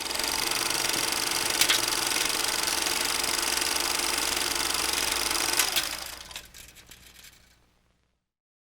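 Small electric kitchen-appliance motor spinning up, running loud and steady for about six seconds, then winding down and fading. Two sharp clicks come through it, one about a second and a half in and one near the end.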